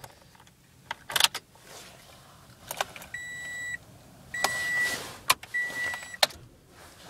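Ignition key clicks and jingles as it is turned to on in a 2005 Toyota Corolla, and the dashboard warning chime beeps three times, a steady high tone, each beep about half a second long. No engine cranking is heard.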